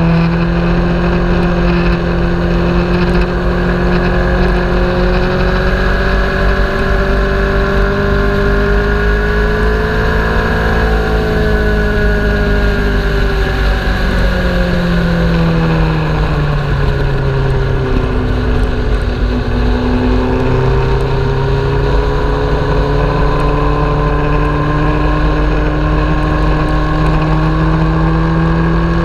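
Sport motorcycle engine heard from a camera mounted on the bike, running hard on track. The engine pitch climbs slowly for about ten seconds, then falls to its lowest around nineteen seconds in and climbs again. A steady rush of wind noise sits under it.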